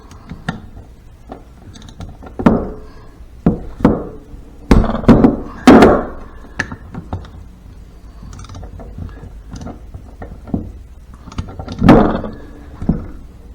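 Torque wrench and socket working on the shaft nuts of a Harley five-speed transmission: a string of sharp metal clicks and several heavier clunks, the loudest about five to six seconds in and again near twelve seconds.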